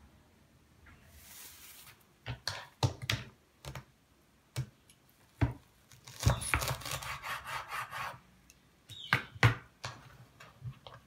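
Kitchen knife chopping fresh parsley on a wooden cutting board: a few separate knocks, then a quick run of chops lasting about two seconds, then two more knocks near the end.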